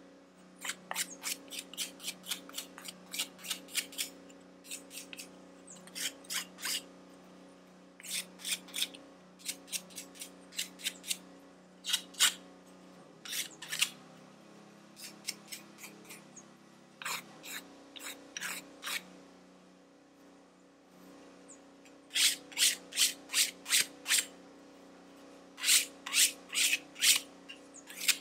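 Quick scratchy rubbing strokes of an abrasive pad on a freshly CNC-milled copper-clad circuit board, several a second in runs broken by short pauses. The strokes smooth off the milling burrs. A faint steady hum sits underneath.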